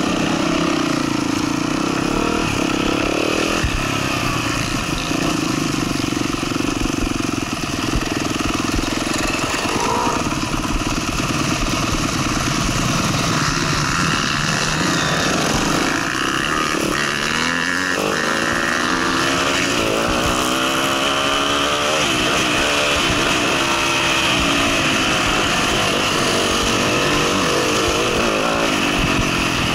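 Motocross dirt bike engine heard close up from a camera on the rider, revving up and falling back again and again as it is ridden along the track, over a steady rush of wind on the microphone.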